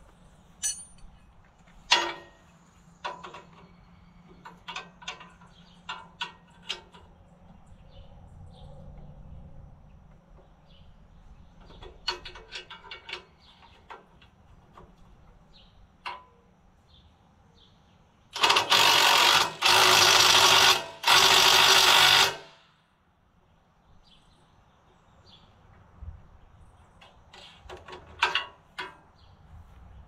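Power impact wrench running in three quick bursts over about four seconds, tightening bolts on a tractor-mounted cultivator, with scattered light metal clinks and knocks before and after.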